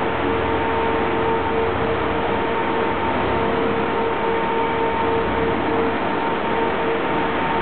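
Alfa Romeo 156's engine running, a steady, even rush of noise that holds its level throughout, with a faint steady whine over it.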